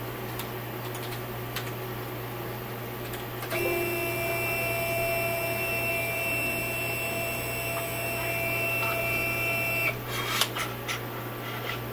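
CNC 3020 router's stepper motor whining at one steady pitch as it drives the Y axis along its ball screw for about six seconds, then stopping suddenly, followed by a few clicks. A steady low hum runs underneath.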